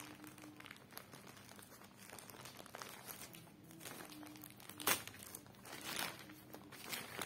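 Parcel packaging crinkling and tearing as it is opened by hand, in irregular rustles with one louder crackle about five seconds in.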